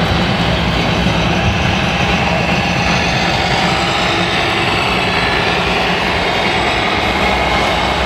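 An RC model truck's sound module playing a diesel engine, a steady loud drone whose pitch shifts slightly midway as the truck drives.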